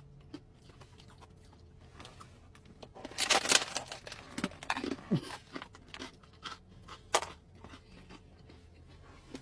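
Crisp crunching and cracking of a giant fortune cookie being bitten and chewed. Scattered snaps, with the loudest run of crunching about three seconds in and a few more sharp cracks after it.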